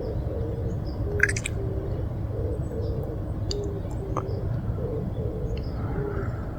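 A dove cooing over and over in short, low notes that alternate between two pitches, with a small bird's brief high chirp about a second in. A steady low rumble runs underneath.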